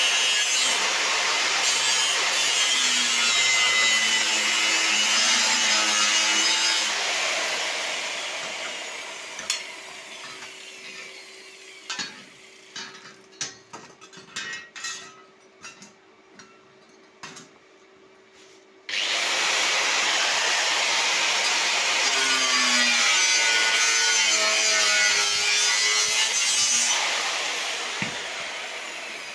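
A power tool running under load in two long spells, each dying away over a few seconds once released, with scattered clicks and knocks in the quiet stretch between them.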